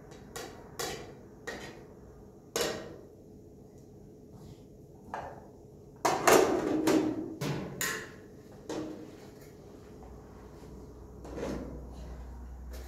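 A series of irregular knocks and clatters, a few at first and then a denser run of clattering about six seconds in, with a faint low hum starting near the end.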